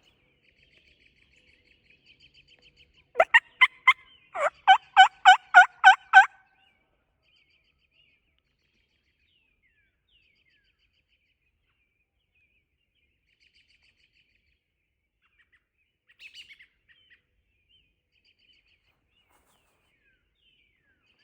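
Turkey call run loudly: a few quick sharp notes, then a series of about eight hen yelps, calling to get a gobbler to answer. About 16 seconds in, a faint distant gobble answers. Small birds chirp faintly in the background.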